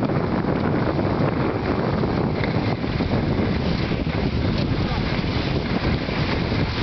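Steady wind rumble on the camera microphone.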